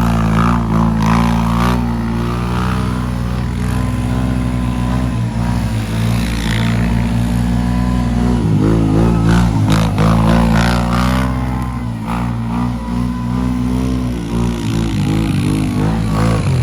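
Four-wheeler (ATV) engine running close by, steady, with its pitch shifting about eight seconds in.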